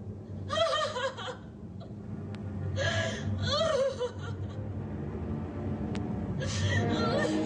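A woman sobbing in anguish, in three bouts of broken, wailing cries, each rising and falling in pitch, with pauses between them.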